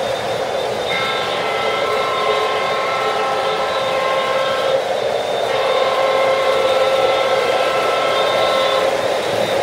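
O-scale model trains running on three-rail track, with a steady noise of wheels and motors. Over it a locomotive's electronic sound system blows a chord horn in two long blasts, the first starting about a second in and the second ending shortly before the end, with a short break around the middle.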